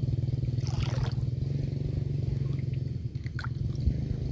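A steady, low motor drone, like an engine running, easing off slightly near the end.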